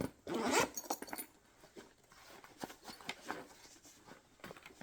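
Handling noise from packing tools into a fabric tool bag: a short rustle near the start, then scattered light clicks and knocks of tools being set in place.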